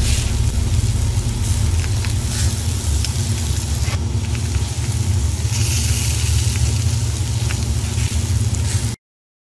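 Sound effect of a burning fire: a steady low rumble with scattered crackles, cutting off abruptly near the end.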